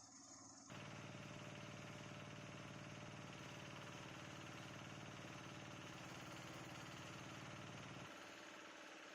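Organic waste shredder machine running steadily with a low motor hum; it cuts in abruptly about a second in and drops to a quieter hum near the end.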